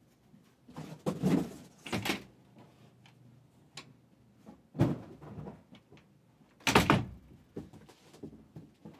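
A series of knocks and thumps: four louder ones about one, two, five and seven seconds in, with smaller taps between them.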